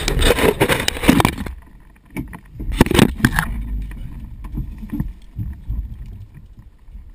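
A driver in a racing suit climbing out of a rally car's seat: heavy rustling and rubbing of suit fabric and harness straps against the microphone for the first second and a half. After that it goes quieter, with a few knocks and clatters about three seconds in.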